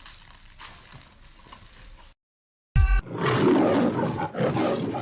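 Faint background noise, a brief dead silence, then a loud, rough animal vocalisation that begins with a short pitched note and carries on to the end.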